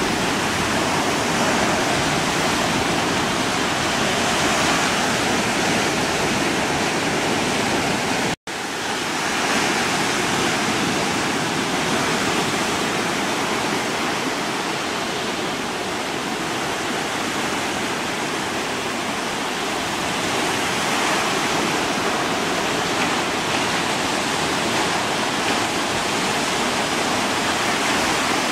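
Steady rushing noise of wind and choppy water, even and without a pulse. It cuts out for a split second about eight seconds in.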